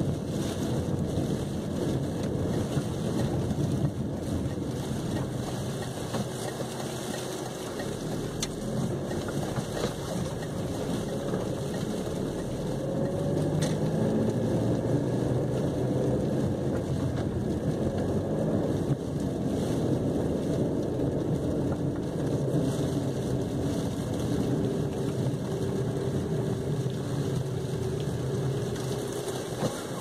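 Steady engine and tyre noise inside a Chevrolet Cavalier's cabin as it drives along a snow-covered street, swelling slightly about halfway through.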